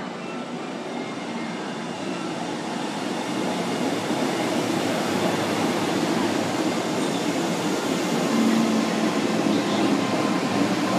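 Electric MTR Disneyland Resort Line train coming into the station and running along the platform screen doors. Its rumble grows steadily louder as it draws alongside, and a low hum comes in about eight seconds in.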